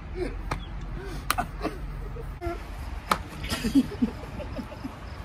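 Tortillas slapped against faces: about four sharp slaps, with short muffled voice sounds from people holding water in their mouths.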